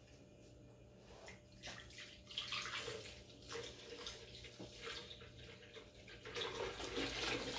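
Milk pouring from a measuring cup into an empty blender jar: a faint splashing trickle that grows louder near the end.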